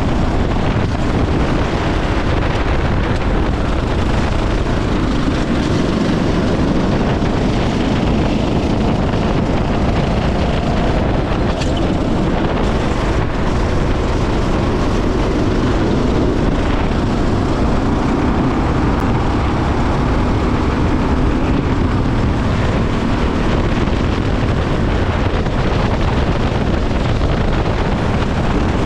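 Go-kart engine running at race speed, its pitch rising and falling as it lifts and accelerates, with wind rushing over the microphone.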